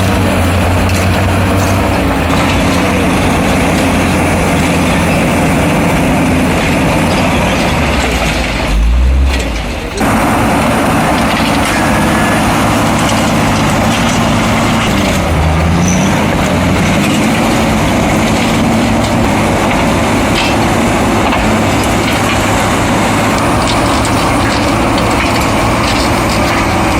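Heavy diesel earth-moving machinery running under load, its engine pitch rising and falling as it revs. The sound changes abruptly about ten seconds in, then goes on in the same way.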